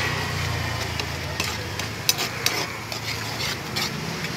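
Flat metal spatula stirring and scraping Maggi instant noodles in a shallow metal pan over the flame, with a steady sizzling hiss and several sharp clicks of the spatula against the pan.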